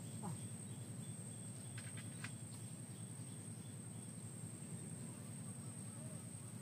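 Insects keeping up a steady high-pitched drone, with faint repeated ticks above a constant low rumbling noise; a few faint clicks about two seconds in.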